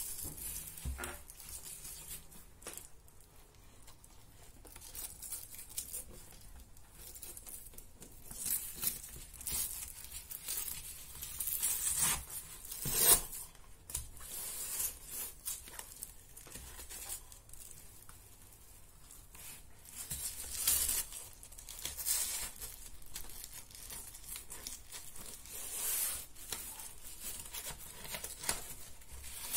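Webbing straps of F-ONE Platinum 3 kiteboard bindings being threaded through the foot-strap pads and fastened, with hook-and-loop closures pulled open and pressed shut: a run of short scratchy rips and rustles, the loudest about 13 seconds in.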